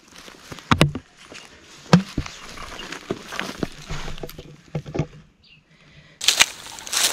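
Close handling on stony ground covered in dry grass: dry grass rustling, with scattered sharp clicks and knocks of stone and bone as a dog's jawbone is picked up. A louder, dense rustle starts near the end.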